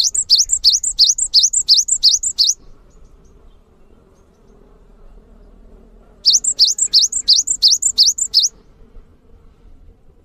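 Cinereous tit (gelatik batu) singing: a fast run of about a dozen repeated high, sweeping notes, about four to five a second, then a pause of several seconds and a second run of about nine notes.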